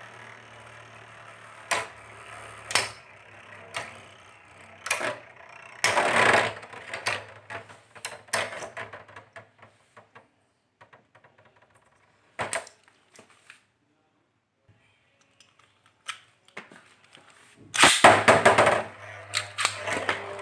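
Metal Beyblade tops (Lightning L-Drago 100HF and Rock Leone 145WB) clashing in a plastic stadium: sharp clacks, singly and in rapid clusters. A quiet spell in the middle, then a loud flurry of hits near the end.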